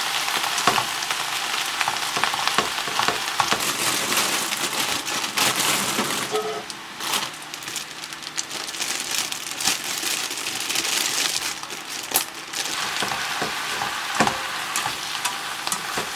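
Food frying in a pan: a steady sizzling hiss with scattered crackles and pops, easing off a little about six seconds in.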